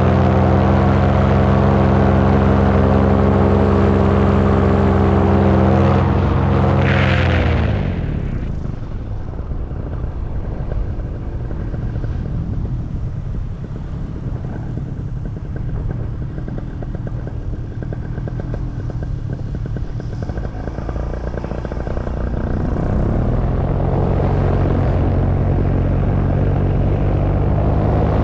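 Paramotor engine and propeller running steadily at cruise power, then throttled back about seven seconds in with a drop in pitch, leaving mostly wind rushing past the microphone during a power-off glide. About 23 seconds in, the engine is throttled back up and runs steadily again.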